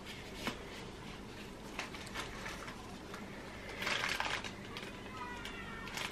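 Gloved hands handling plastic resin bottles: a few soft clicks, then a louder rustle and squeak of disposable gloves against plastic about four seconds in.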